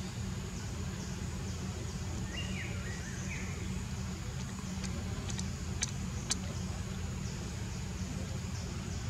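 Outdoor ambience: a steady low rumble under a steady high hiss. A few short high chirps come about two to three seconds in, and several faint sharp clicks come around five to six seconds in.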